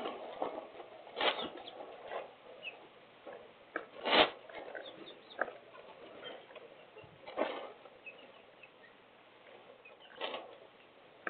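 Hurricane wind gusts driving rain against a window, coming in noisy bursts every few seconds, the loudest about four seconds in. Faint short chirps sound in between. Heard through a security camera's microphone, so nothing above the upper mids comes through.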